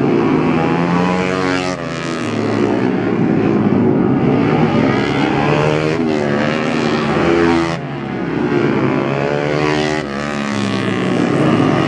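Racing motorcycles at speed on a track, their engines revving hard, the pitch repeatedly climbing and falling as the riders accelerate, back off and shift gears.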